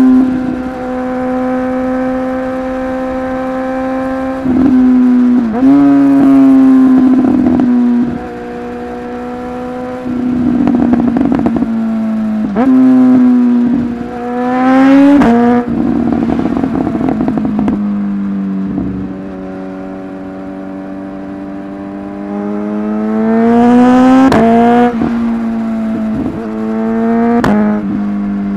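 Suzuki GSX-S1000's inline-four engine holds a steady note, then is run up through the gears several times. The pitch climbs and drops abruptly at each quickshifter upshift, and each shift is marked by a sharp exhaust pop.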